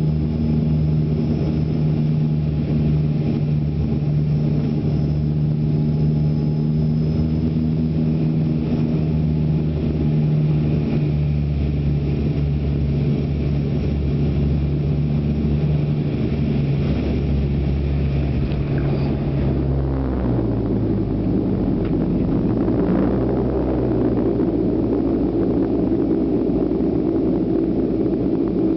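Twin turboprop engines and propellers of a de Havilland Dash 8-315, heard from inside the cabin: a steady propeller drone while the aircraft comes in low over the runway. About twenty seconds in, the propeller tone drops in pitch and a louder rushing noise builds as the aircraft slows on the runway after touchdown.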